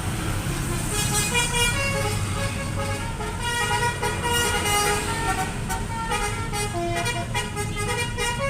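Bus telolet horn, a set of multi-tone air horns, playing a tune of changing notes starting about a second in, over the low running rumble of the bus engine.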